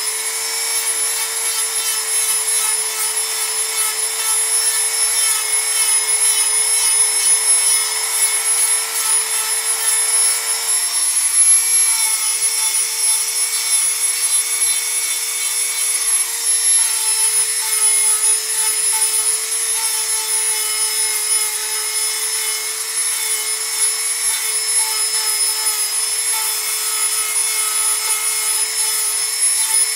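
Dremel rotary tool running at high speed, its bit grinding carved wood to round over the edges: a steady high whine that wavers a little in pitch, with a rasping as the bit cuts.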